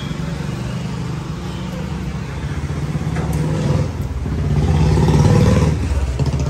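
Roadside traffic with a steady engine hum, as a motor vehicle passes close by, loudest about five seconds in before fading.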